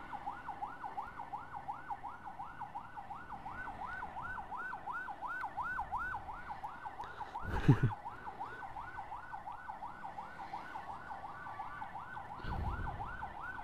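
Electronic emergency siren in a fast yelp, its pitch rising and falling about three times a second without a break. About halfway through there is one brief loud thump.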